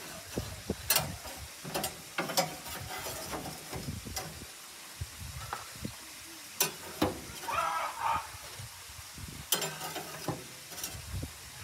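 Hamburger patties being taken off a grill's wire racks: scattered clinks and knocks of the metal grates, about eight of them, over a faint sizzle.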